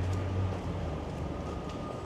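City street traffic: a motor vehicle's low engine drone that fades about half a second in, over a steady wash of traffic noise.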